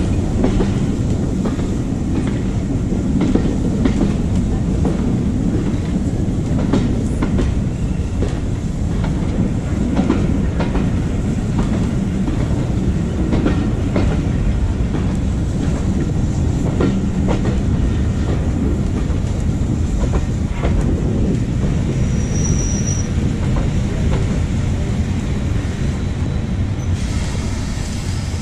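Heritage railway carriage riding over jointed track and pointwork: a steady rumble with the wheels clicking irregularly over rail joints. A brief high wheel squeal comes about two-thirds of the way through, and the running eases a little near the end as the train comes alongside the station platform.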